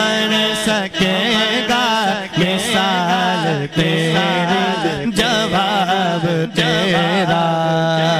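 Solo male voice singing a naat, an unaccompanied Urdu devotional song, with wavering melismatic ornaments over a steady low drone. The line breaks briefly about every second and a half.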